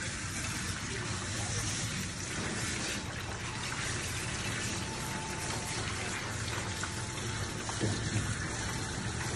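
Water running steadily from a handheld shower sprayer, rinsing shampoo off a dog's coat in a stainless steel grooming tub, the first rinse of a two-wash bath.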